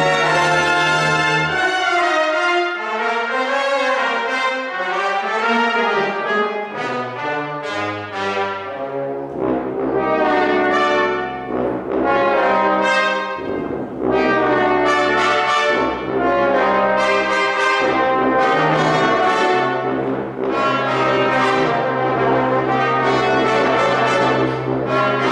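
Brass ensemble of trumpets, trombones, euphoniums and tubas playing a lively concert piece in full chords. The low brass drops out for several seconds early on, then comes back in under the upper voices.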